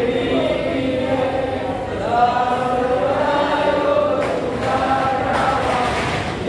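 Devotees singing an aarti together in chant-like unison, in long held notes that slowly rise and fall, with a couple of short sharp sounds about four and five seconds in.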